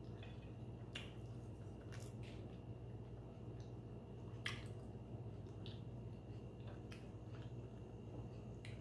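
Faint chewing of a sushi roll: scattered wet mouth clicks and smacks about a second apart, the sharpest about halfway through, over a low steady hum.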